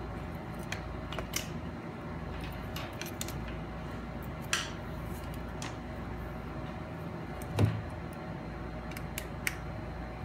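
Scattered light clicks and knocks of a charging cable being handled on a desk, over a steady low hum, with one louder thump about seven and a half seconds in.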